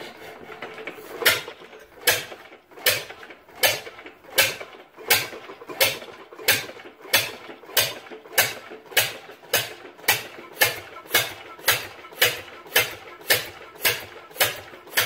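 Lister CS 10/2 twin-cylinder diesel cold starting: a brief low clatter of hand cranking, then the engine catches and fires slowly, with a sharp bang at each firing. The bangs come about once every three-quarters of a second at first and gradually quicken as it picks up speed.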